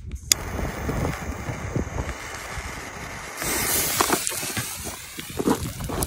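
A 2-inch Master Ballistic firework rocket's motor igniting with a loud hiss about three and a half seconds in, fading after about a second as it lifts off. Before it, low rumbling handling and wind noise on the microphone.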